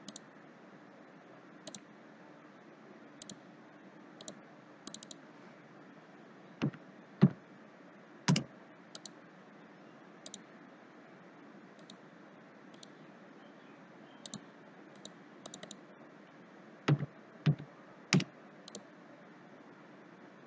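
Computer mouse and keyboard clicks: scattered single clicks, with a few louder key taps in two clusters, about a third of the way in and near the end, over a faint steady hiss.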